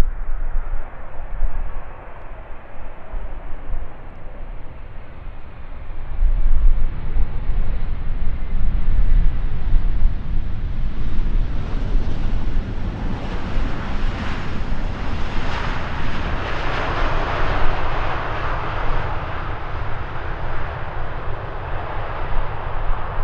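Jet airliner flying past, its engine noise swelling to a peak about two-thirds of the way through and then easing off.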